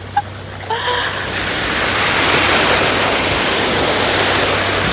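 Ocean surf washing up on a sandy beach. The rush of water swells up about a second in and then stays steady.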